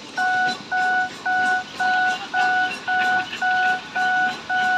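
Japanese railroad crossing warning bell ringing its repeated electronic 'kan kan' ding, about two strokes a second, each stroke a clear steady tone.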